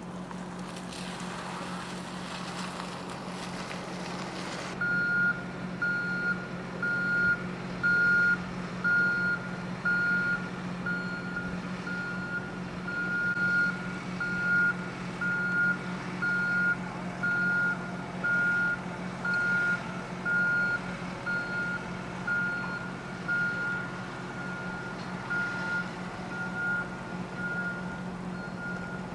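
A truck's reversing alarm beeping steadily at one pitch, about once a second, starting about five seconds in, over a steady low hum. Before the beeping starts, a hiss runs for about four seconds and cuts off sharply.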